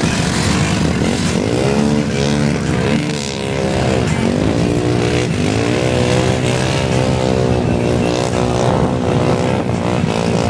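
Off-road vehicle engines revving hard again and again, the pitch climbing and dropping, over a steady rumble, as a stuck truck is towed out of the mud by a buggy on a strap.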